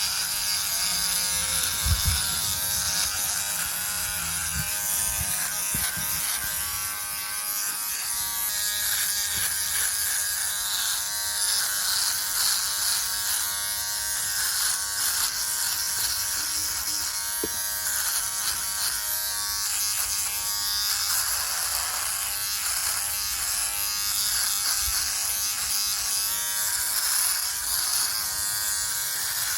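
Philips Norelco OneBlade electric trimmer buzzing steadily as it shaves through a beard, with a brief low bump about two seconds in.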